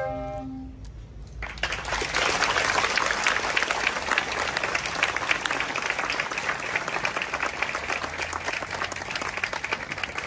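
A school wind band's final held chord dying away, then an audience applauding from about a second and a half in, steady to the end.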